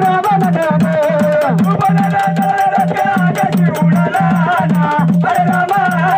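Gondhal folk music: sambal drums beating a fast, even rhythm of about five or six strokes a second under a sustained, wavering melody line, with a rattling jingle.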